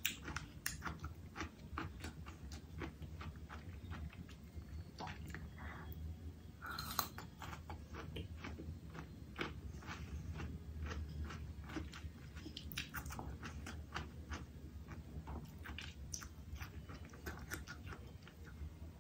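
Close-miked eating: a person biting and chewing food, with many small, irregular crunchy clicks and smacks.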